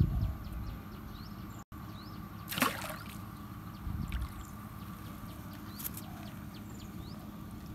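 A hooked fish splashing at the surface of a pond as it is pulled in on a rod, with one loud splash a little over two seconds in. Small birds chirp over a steady outdoor hiss throughout.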